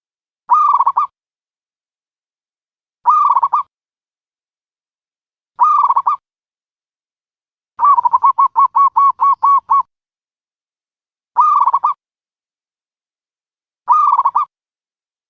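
Dove calling: short phrases of a few quick coos repeating about every two and a half seconds, with a longer run of about ten rapid notes in the middle. The identical repeats are a looped call used to lure doves into a trap.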